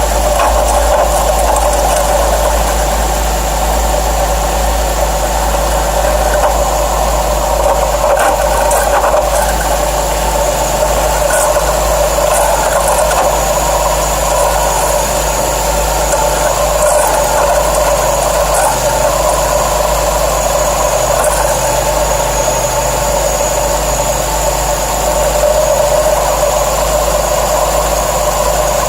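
Pontiac Grand Prix GT engine idling steadily with a continuous mechanical noise from under the hood, which the owner suspects comes from the serpentine belt's tensioner or idler pulley.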